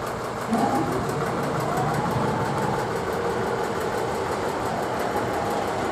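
Small diesel shunting locomotive running at idle while the turntable carrying it turns, with a whine that rises in pitch about half a second in and then holds steady.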